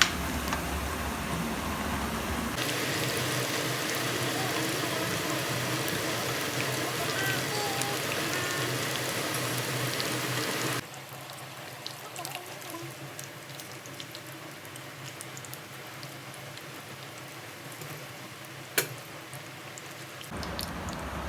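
Finely sliced tempeh frying in hot oil in a wok, a dense steady crackle and sizzle. About ten seconds in it drops abruptly to a quieter sizzle, and there is a single sharp knock near the end.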